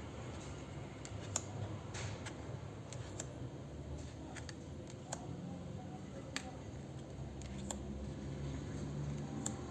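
Tarot cards being handled: light, sharp clicks of card stock at irregular intervals, about one every second, over a faint low hum.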